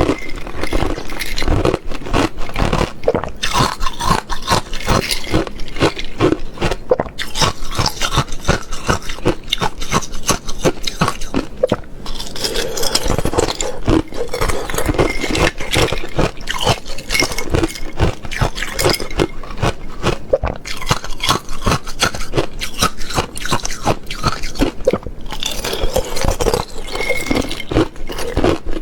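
Thin ice being bitten and chewed: dense, irregular crunching and crackling of ice breaking between the teeth.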